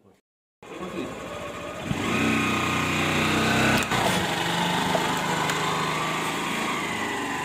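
Motorcycle engine running under light throttle as the bike's wheel rolls onto a smartphone propped on a brick, starting about half a second in and getting louder about two seconds in. A single sharp crack near the middle as the wheel presses down on the phone.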